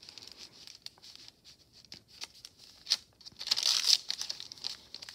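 Paper rustling and crinkling as the stiff, layered paper pages and a paper tag of a handmade journal are handled, with small clicks throughout. A louder stretch of rustling comes a little past halfway.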